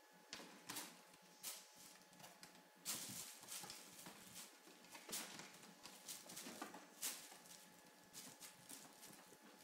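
Himalayan kittens scrambling on a wire-mesh play tunnel, their paws and claws making faint irregular taps, scratches and rustles on the mesh and tinsel.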